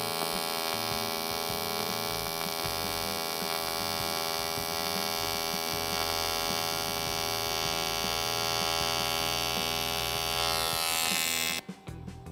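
AC TIG welding arc from a Teamwelder TIG 180 AC/DC laying a bead on aluminium sheet: a steady, loud electric buzz with many overtones, the sound of the alternating-current arc. It cuts off suddenly near the end as the arc is stopped.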